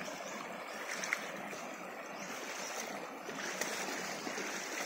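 Shallow stream running over a muddy, grassy channel: a steady rush of flowing water.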